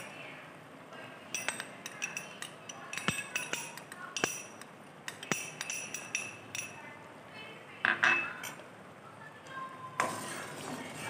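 Small glass bowl clinking as melon seeds are tapped out of it into a pan: a scattered series of light, ringing clinks.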